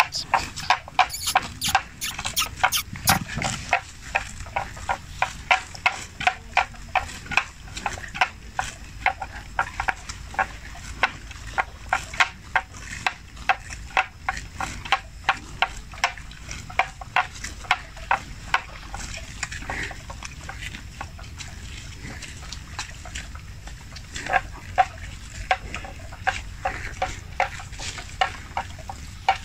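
Water buffalo grazing, tearing and cropping grass: a steady run of crisp tearing crunches, about three a second, which thins out for a few seconds past the middle.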